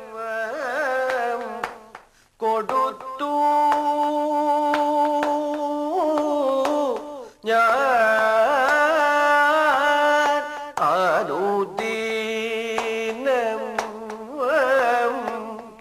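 A man singing a Kathakali padam in Carnatic style: long held notes alternating with quick wavering ornaments, with three short breaks for breath.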